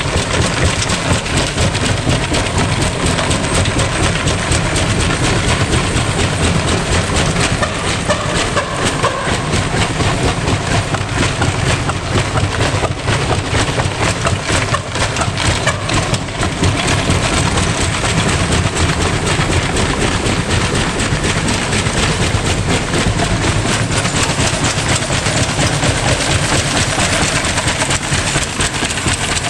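Electrolux front-loading washing machine spinning with a brick loose in the drum: rapid, continuous banging and rattling as the unbalanced drum batters the cabinet.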